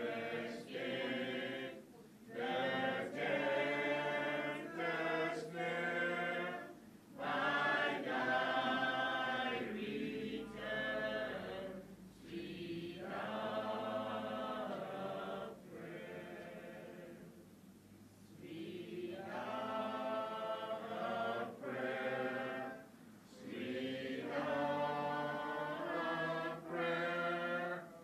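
Voices singing together, a song in held phrases a few seconds long with short breaks between them.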